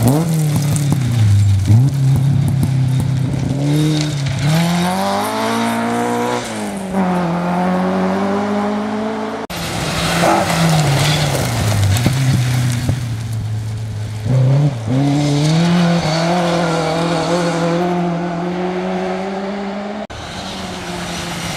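Mk2 Ford Escort rally cars at full stage speed on gravel: the engine note climbs hard and drops back at each gear change as a car passes and pulls away. About halfway through the sound breaks off and a second car's engine takes over, revving up through the gears the same way; it breaks off again near the end.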